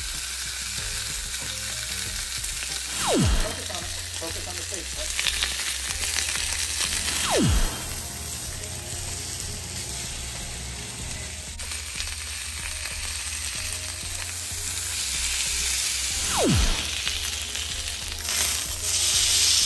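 Ribeye steak searing on a hot ridged stovetop grill pan in melted fat, sizzling steadily. Four deep booms that fall quickly in pitch come over the sizzle every few seconds.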